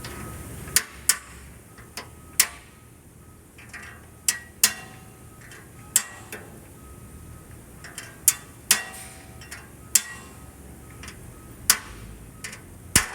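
Sharp metallic hammer taps setting freshly changed carbide teeth in a sawmill's circular saw blade, landing often in pairs every couple of seconds.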